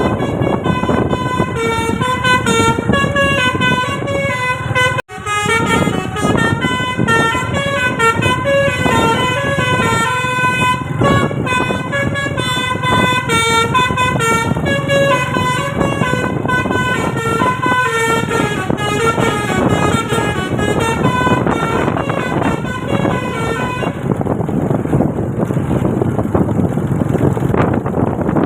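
Musical telolet basuri air horn on a tour bus, playing a melody of quick stepped notes over the bus's running noise. The horn drops out for an instant about five seconds in and stops a few seconds before the end, leaving only the vehicle noise.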